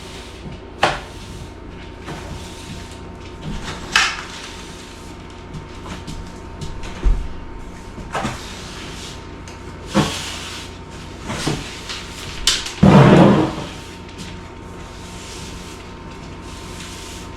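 Household cleaning clatter: scattered knocks and bumps of things being handled and set down in a kitchen, about eight separate knocks, with a longer, louder clatter a little past the middle.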